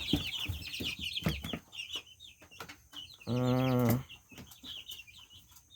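A brood of young chicks peeping, many quick high chirps overlapping throughout. About three seconds in, a man's voice holds a low, drawn-out 'uhh' for under a second.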